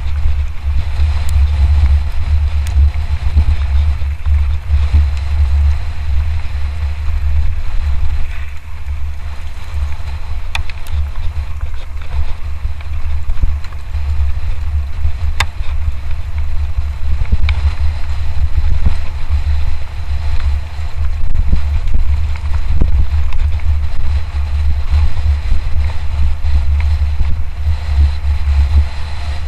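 Heavy wind rumble on the camera microphone as a mountain bike is ridden fast downhill, with scattered clicks and rattles from the bike over rough ground.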